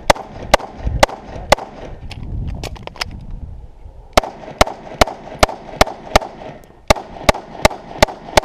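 Rapid pistol fire: four shots about half a second apart, a pause of roughly two and a half seconds, then a steady string of about a dozen shots at roughly two and a half a second.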